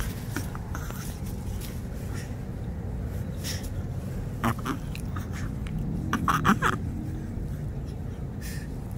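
Shih Tzu puppy snuffling and snorting in short sharp bursts while it play-bites a hand, with a cluster of them about two-thirds of the way through, over a steady low rumble.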